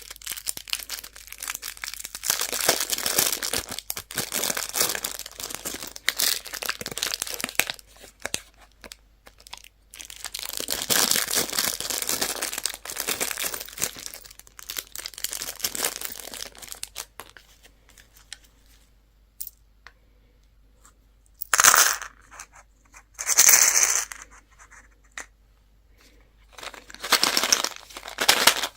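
Plastic candy wrappers being crinkled and torn open by hand, in two long stretches and then three short bursts near the end.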